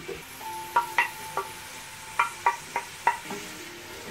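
Wooden spoon knocking and scraping against a stainless steel pot and cutting board as chopped onions are pushed into the pot: about seven sharp taps, each leaving a brief metallic ring from the pot.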